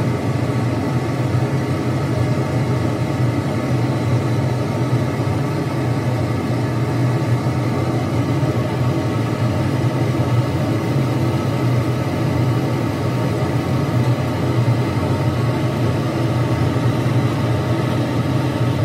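Steady low hum of a ventilation fan running without change.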